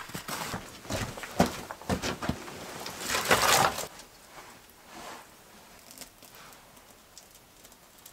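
Footsteps crunching in snow and branches scraping along as they are dragged, with a run of knocks and a loud scraping rush about three seconds in. After that, only faint small handling sounds of dry kindling.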